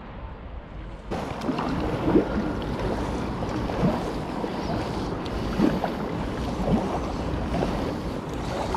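Kayak paddling: the paddle blades splash into the water about every one and a half seconds, over steady wind noise on the microphone. The sound is duller and quieter for the first second, then becomes louder and fuller.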